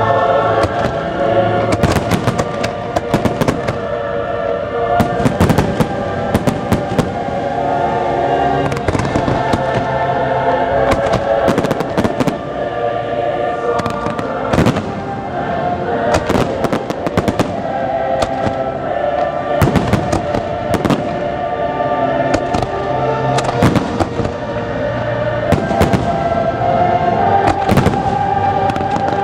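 Fireworks shells bursting, many sharp bangs in quick irregular succession, over loud show music with long held chords.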